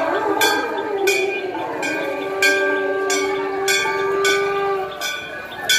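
A bell struck over and over at a steady pace, about three strikes every two seconds, each strike ringing on. Under it a long steady tone is held from about a second in until near the five-second mark.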